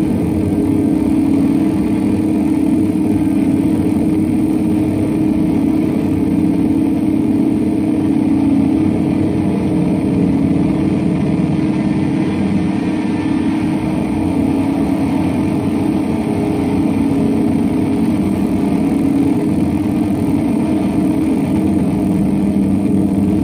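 Electric guitar sound transformed through a double set of effects pedals into a dense, steady, noisy drone centred low in pitch, holding without breaks.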